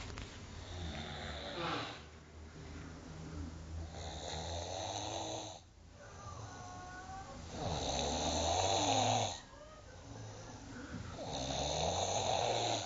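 A sleeper snoring in slow, regular breaths, one rasping snore about every three and a half seconds, the loudest ones past the middle and near the end.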